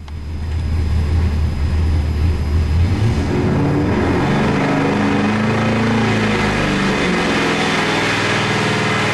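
Carbureted 415 cubic inch small-block Chevrolet stroker V8, with a hydraulic roller cam, running on an engine dyno. It picks up in pitch about three seconds in, then holds steady at around 2,400 rpm.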